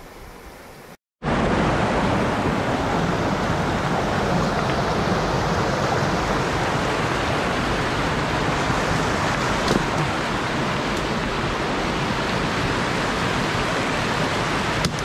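Mountain stream rushing over rocky rapids. It is quieter for the first second, drops out briefly, then comes back as a loud, steady rush, with a single small knock near ten seconds in.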